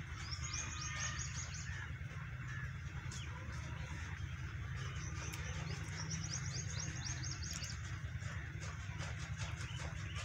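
A small bird's rapid, high chirping trill, heard twice, the second run a few seconds after the first, with a few fainter chirps between, over a steady low background rumble.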